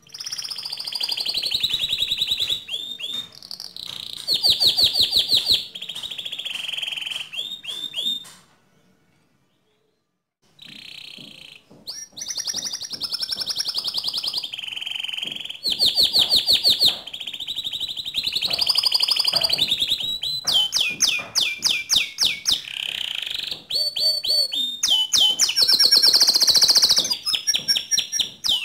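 Domestic canary singing in full song: long runs of rapid trills and rolls and gliding whistled notes. There is a pause of about two seconds near the middle.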